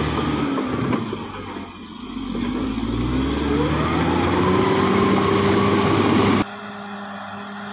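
Bulldozer diesel engine of a CAT D6R XL, its revs dropping and then climbing again and holding steady under work. It cuts off abruptly near the end, giving way to quiet music.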